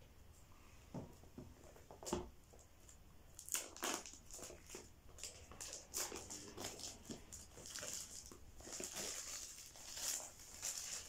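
Plastic packaging crinkling and tearing as it is peeled off a smartphone box, a few scattered crackles at first, then a busier run of crackling from about three seconds in.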